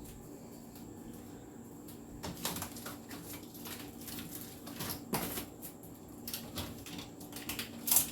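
Food jars, bottles and containers knocking and clinking as they are lifted off a refrigerator shelf: a run of irregular knocks, the loudest near the end, over a faint steady hum.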